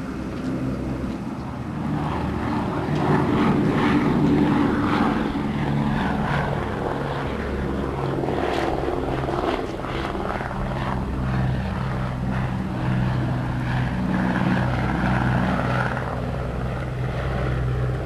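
Boeing B-17 Flying Fortress's four Wright R-1820 Cyclone radial engines droning steadily as the bomber flies past overhead. The drone grows louder about two seconds in, peaks a few seconds later, then holds.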